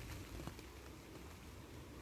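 Faint steady hiss of light rain falling outdoors, with a low rumble underneath.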